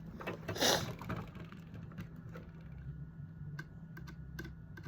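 Light, scattered clicks and taps of small items being handled at close range, with a short hiss about half a second in.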